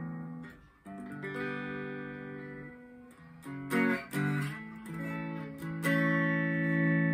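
Slick SL50 Telecaster-style electric guitar played through an amp's clean channel: a series of chords, each struck and left to ring. The last one, about six seconds in, is the loudest.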